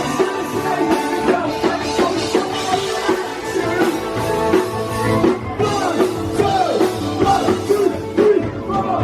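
Live rock band playing a song, with a drum kit and a singing voice over the band.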